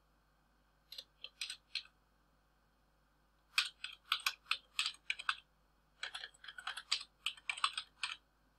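Typing on a computer keyboard: a few keystrokes about a second in, then two quick runs of keystrokes with a short pause between them.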